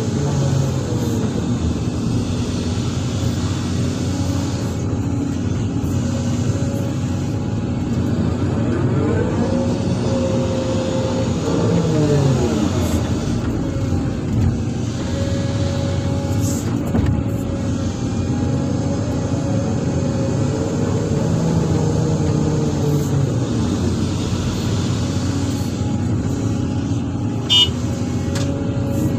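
Sany SY365H excavator's diesel engine running steadily under hydraulic load, its note rising and falling a few times as the boom and bucket work. Near the end, a short sharp knock as the bucketload drops into the dump truck's bed.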